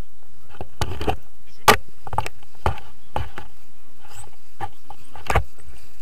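Irregular thuds and knocks, a few a second, the loudest about two seconds in: running footsteps on grass and the jostling of harness and camera mount during a tandem paraglider takeoff run.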